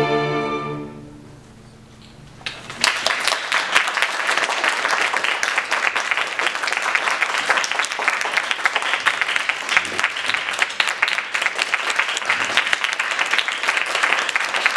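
A string orchestra's final chord dies away within the first second. After a short hush, the audience bursts into applause about two and a half seconds in, and the clapping carries on steadily.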